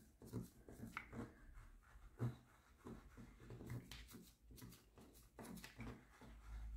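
Faint, irregular dabbing and scraping of a sealer bottle's applicator as it is pressed onto the rhinestone drills of a diamond painting and rubbed across them. A low rumble rises near the end.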